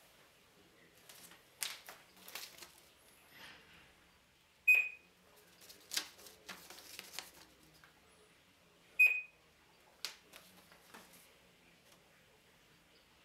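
Saveo Scan Motion omnidirectional barcode scanner giving a short high beep twice, about four seconds apart, each one confirming a successful read of a code. Soft rustles and light taps come in between.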